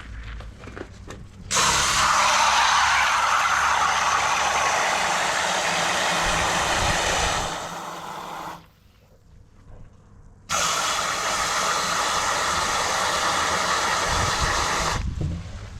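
Water gushing from a tap into a container in two long spells, about six seconds and then about four and a half, with a near-silent break of about two seconds between them.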